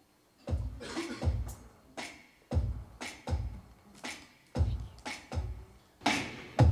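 Drum kit beginning a song on its own with a steady kick-and-snare beat, about two hits a second, starting about half a second in.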